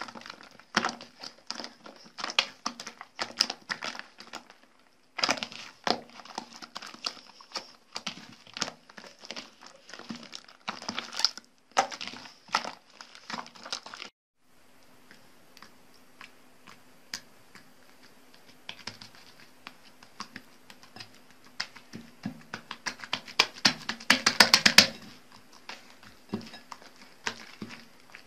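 Slime being kneaded and squeezed by hand in a bowl: a run of sticky clicks, crackles and squelches as air pockets pop. A dense burst of rapid pops about three-quarters of the way through is the loudest part.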